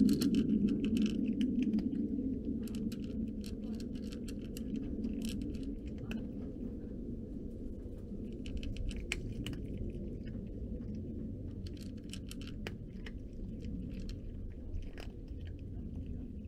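A cat chewing dry kibble, a rapid, irregular run of small crunches and clicks. Beneath it is a low background hum, loudest at first and fading over the first few seconds.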